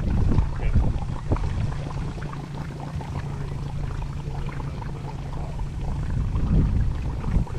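Small boat's outboard motor idling steadily close by, with a few knocks in the first second and a half.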